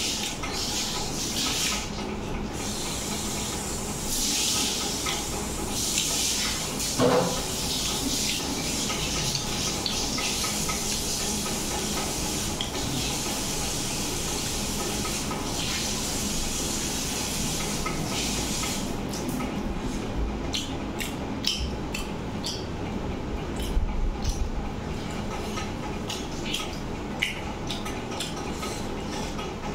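Eating by hand from a steel plate: fingers mixing and scraping rice against the metal, with chewing, over a steady hiss. Short sharp clicks and smacks come thick in the second half, and one brief louder pitched sound comes about seven seconds in.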